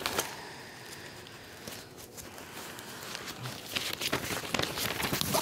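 Faint rustling and handling of paper, with soft scattered ticks that grow busier over the last second or so.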